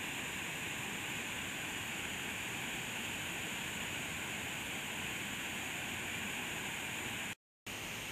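Steady rush of a creek waterfall spilling into a pool. It breaks off for a split second near the end, then a similar rush of water resumes.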